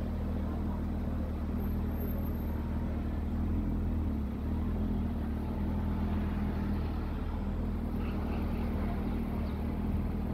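Motorcycle engine running at a steady idle, a constant low hum with no change in pitch.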